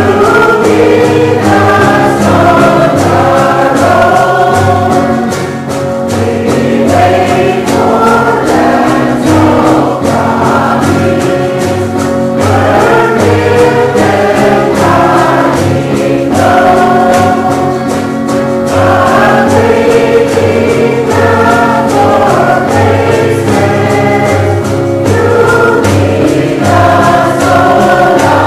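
Background music: a choir singing a Christian gospel-style song, several voices in harmony over a steady bass line.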